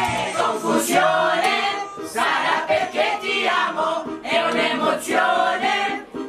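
A group of men and women singing loudly together into microphones, a sing-along in phrases with short breaks, with almost no backing music.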